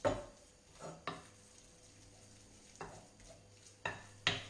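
Hands mixing a soft filling of boiled potato, nduja and smoked provola in a glass bowl, with the bowl giving several short knocks as it is worked.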